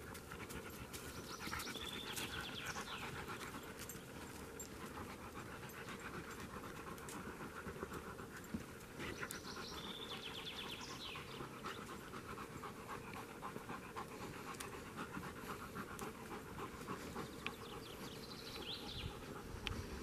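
German shepherd panting quickly and steadily.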